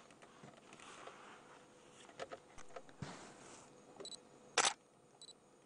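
Camera shutter clicking several times at irregular intervals, the loudest click about four and a half seconds in.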